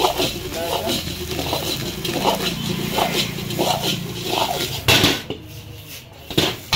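Steel ladle scraping and stirring egg fried rice around a wok, about one stroke every two-thirds of a second. Near the end come two loud metal clanks as the wok is tossed over the gas burner.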